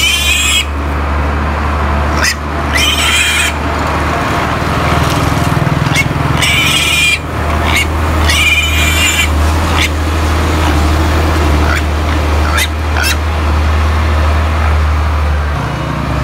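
Duroc-Pietrain piglet squealing in several shrill bursts while it is being handled and forced into a crate, over a steady low rumble.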